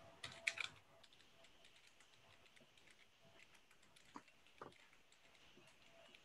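Faint computer keyboard typing: a quick run of key clicks about half a second in, then two lone taps around four seconds in, over a faint steady hum.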